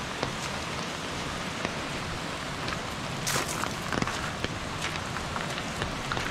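Steady rain falling, with scattered sharper drips and taps now and then.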